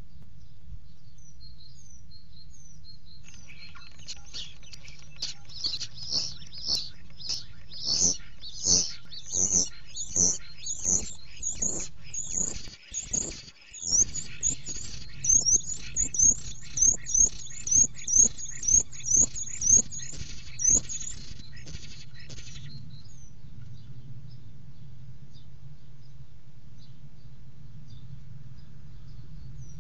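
Male European starling singing inside a nest box, courtship song to lure a female: for about twenty seconds a regular run of clicking notes topped by high whistled sweeps, about two a second. Before and after the run only faint high chirps are heard over a steady low hum.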